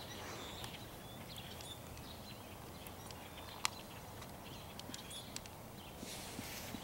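Soft hoofbeats of a horse trotting on a sand arena under faint outdoor ambience, with birds chirping in the background. A single sharp click stands out about halfway through.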